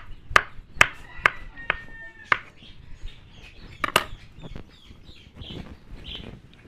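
Kitchen knife chopping fresh cheese on a plastic cutting board: even knocks about two a second that stop about two and a half seconds in, with one more knock near four seconds. Chickens cluck in the background.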